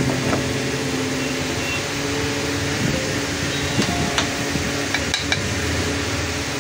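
Steady hiss with faint held background-music notes, and a few light clicks of steel dishware near the middle.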